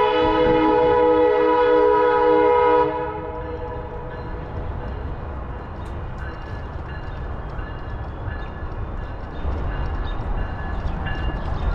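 Train horn sounding a long chord of several notes at once, cutting off about three seconds in, followed by a steady low rumble.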